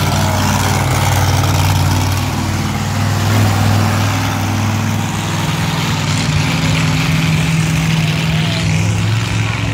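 Monster truck engine running at a low, steady pace, a deep even drone with small rises and falls in pitch.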